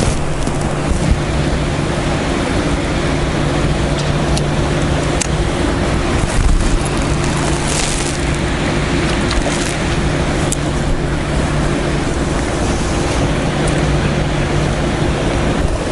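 Steady rushing of wind on the microphone, with a low steady hum underneath and a few faint sharp clicks.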